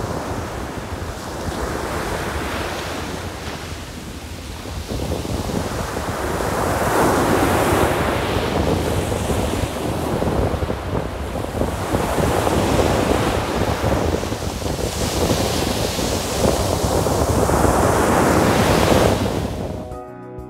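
Sea waves breaking and washing in, the rush of water swelling and fading every few seconds, with wind buffeting the microphone.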